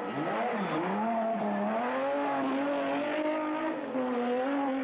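BMW 6 Series (E24) rally car's straight-six engine: the note swoops down and up through a corner, then climbs steadily as the car accelerates away, with a short drop near the end as it shifts up a gear.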